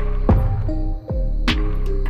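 Background music with a steady beat: sustained low bass notes under a regular percussive hit.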